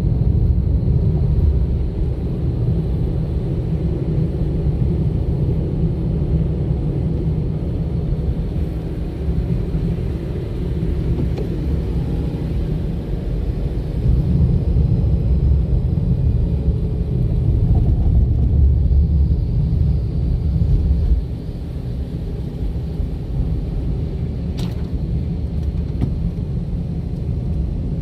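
A car driving along a road: steady low rumble of engine and tyres, easing off somewhat about three-quarters of the way through, with a single short click a little after that.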